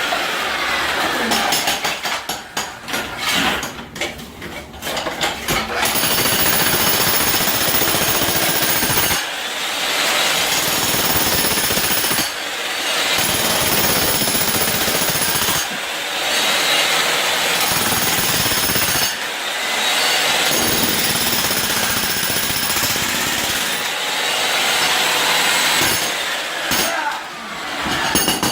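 Jackhammer breaking up a concrete floor, running in stretches of a few seconds with short pauses, and rapid separate blows when it starts and stops.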